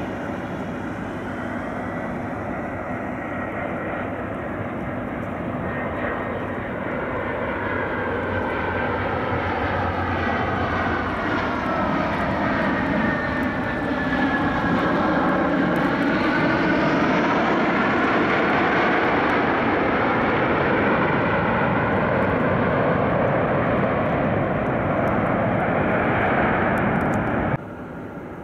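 Frontier Airbus A319 jet landing, its engines' whine growing louder as it approaches and gliding down in pitch as it passes. The sound is louder still after touchdown about halfway in, then cuts off suddenly near the end.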